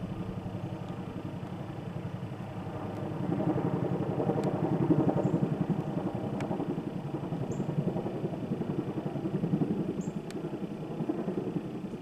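Military aircraft flying overhead: the fast beating of a CH-47 Chinook's tandem rotors mixed with the drone of a C-130's four turboprops, a steady pulsing rumble that swells louder a few seconds in.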